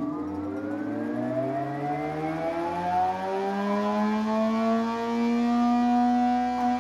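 An old jointer-thicknesser's electric motor and cutterhead spinning up after being switched on: a whine that rises steadily in pitch for about five seconds, then levels off to a steady run.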